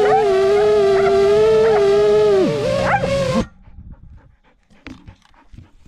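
Brushless motors and 5-inch propellers of an FPV quadcopter (Xing 2207 2450KV) whining at a steady high pitch with small wavers. About two and a half seconds in the pitch drops sharply, and the motors cut out a second later, leaving only faint scattered clicks and rustles.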